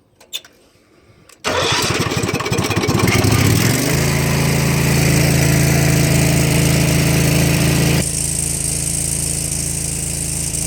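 Pressure washer engine starting about a second and a half in, picking up speed over a couple of seconds and then running steadily. Its sound changes about eight seconds in.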